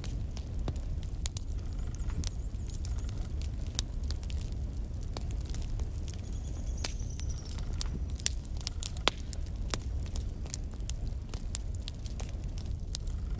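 Wood fire burning in a fireplace: logs crackling and popping at irregular intervals over a steady low rumble of the flames.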